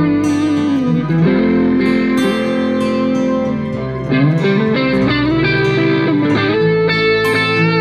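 Instrumental music led by guitar, with notes bending and sliding in pitch.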